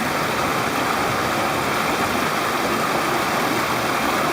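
Mountain stream water rushing, a steady even noise.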